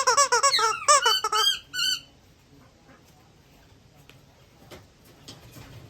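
A rapid run of high-pitched squeaks, several a second, for about the first two seconds, from an eclectus parrot at play with its squishy squeak toy. After that there are only a few faint ticks.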